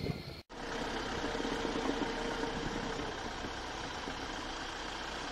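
Safari jeep engine running steadily while driving, with a low hum under a steady rush of road noise, starting abruptly about half a second in.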